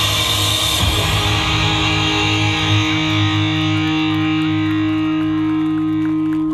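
Yosakoi dance music with electric guitar ending on a long held chord: the full band drops out about a second in and the final chord rings on steadily.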